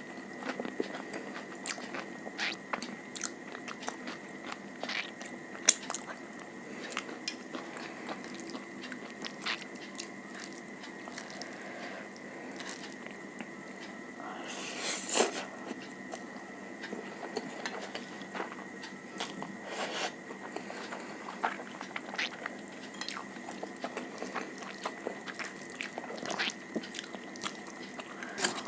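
Close-miked eating: biting and chewing, with many small wet clicks and crunches. About halfway through there is a louder burst of noise lasting about a second. A faint steady high whine runs underneath.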